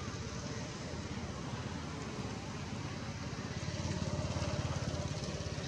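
A small engine running steadily with a fast, even low throb, getting a little louder past the middle.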